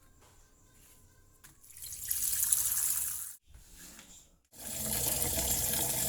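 Water running in two spells, about a second and a half and then about two seconds, with a short break between.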